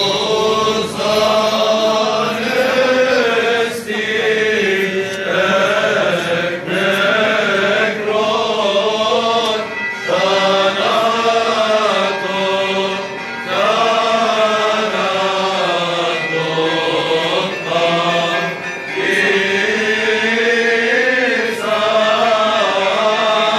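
A choir chanting a Byzantine Orthodox hymn together in long, slow, melismatic phrases.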